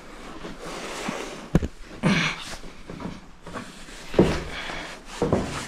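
Footsteps going down worn wooden stairs: a few heavy, uneven treads roughly a second apart, with scuffing in between.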